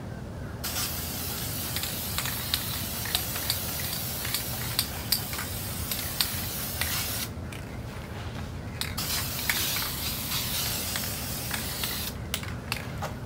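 Aerosol can of Duplicolor gloss clear coat spraying in a long steady hiss, breaking off for about a second and a half around seven seconds in, then spraying again. A few short sprays come near the end.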